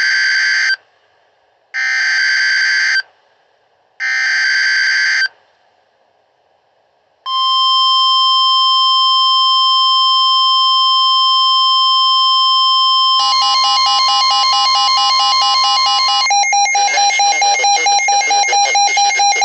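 Emergency Alert System header: three short screeching digital data bursts about a second long with short gaps, sent ahead of a severe thunderstorm warning. About seven seconds in, a long steady alert tone begins. Near the middle it turns choppy and then into a rapidly pulsing tone that runs almost to the end.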